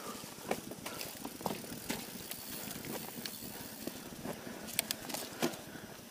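Polygon Siskiu T7 mountain bike ridden along a dirt forest trail: steady tyre and wind noise with irregular clicks and knocks as the bike rattles over bumps.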